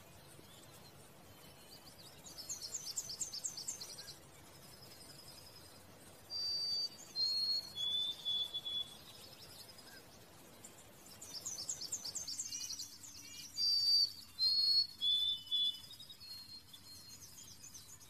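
A small songbird singing twice: each phrase is a quick run of high notes followed by a few clear whistled notes stepping down in pitch.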